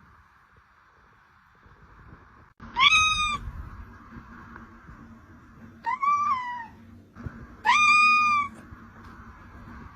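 Kitten meowing three times, a few seconds apart; each meow is short and high-pitched.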